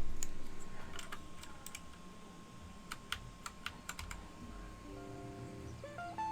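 Plastic keycaps being pressed down onto the switches of a Matrix Elite mechanical keyboard: a scatter of sharp clicks, thickest about halfway through. A melody of stepped notes comes in near the end.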